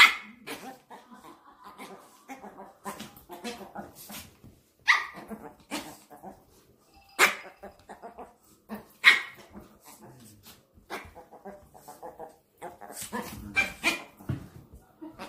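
Pomeranians play-fighting: about five sharp, high barks spread a few seconds apart, with quieter short yaps and scuffling noises in between.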